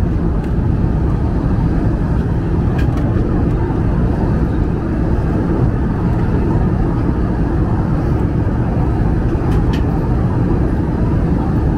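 Airbus A320 cabin noise in cruise: a steady drone of airflow and engines, heavy in the lows, with two faint clicks about three and ten seconds in.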